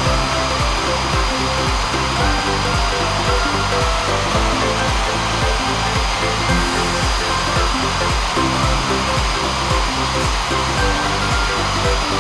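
ECOVACS DEEBOT N8 Pro+ robot vacuum running: a steady, even whoosh of suction air with a thin high whine. Background music with a steady beat plays over it.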